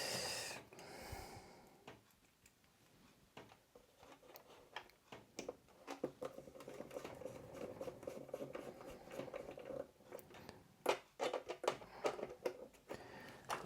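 Faint small clicks and scrapes of small screws being driven into the plastic hub housing of a 3D-printer filament unit (Bambu Lab AMS 2 Pro), with a short rustle at the start. The clicks come irregularly and bunch up near the end.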